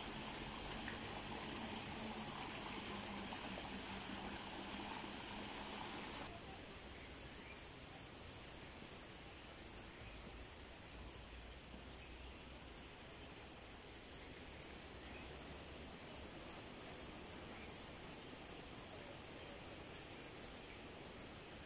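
A steady high-pitched insect chorus, with running water from the pond mixed in for the first six seconds before it cuts off.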